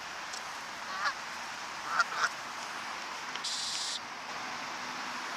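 Canada geese honking in short calls: one about a second in and two more, the loudest, around two seconds in.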